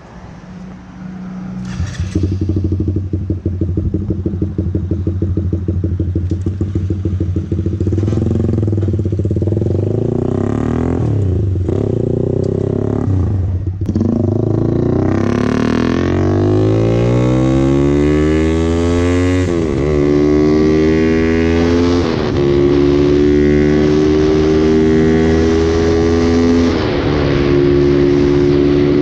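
Motorcycle engine pulling away and accelerating hard through the gears: the pitch climbs steadily and drops back at each upshift, with several shifts in the second half.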